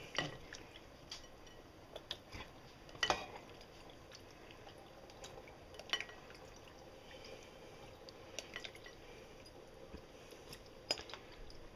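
A spoon clinking and scraping against a pan as pasta is stirred through sauce: a handful of scattered short knocks over a faint steady background.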